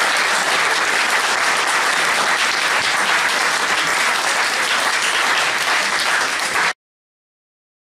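Audience applauding steadily, a roomful of people clapping; the applause cuts off suddenly near the end.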